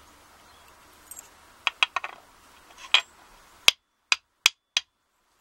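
Sharp little metallic clicks and clinks of a pick working sticky pins out of an American Lock Series 20 brass lock core, over a wooden pin tray. There are about nine irregular clicks, ending in four louder ones in quick succession.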